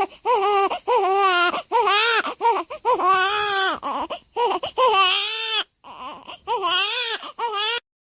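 Newborn baby crying: a quick run of about a dozen short wailing cries, each arching up and down in pitch, with brief catches of breath between. The crying stops abruptly near the end.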